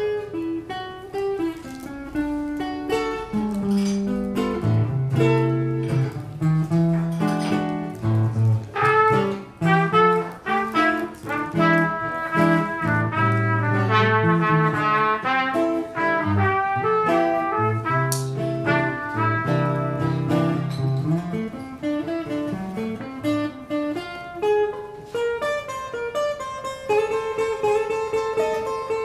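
Instrumental break of a slow jazz ballad: an archtop guitar plays chords and single-note lines, and a trumpet joins partway through with a melodic solo over it. No singing.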